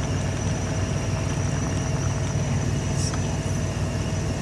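Idling semi truck, a steady low drone with no change in pitch or level.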